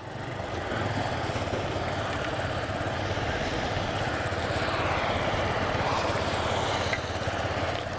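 Honda CG Titan motorcycle's single-cylinder engine pulling away and running at road speed, mixed with wind rush on the helmet camera over a wet road. It gets louder through the first second as the bike moves off.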